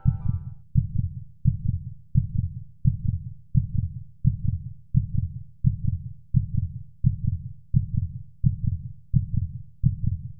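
Heartbeat sound effect: a steady low double thump, lub-dub, about one and a half beats a second.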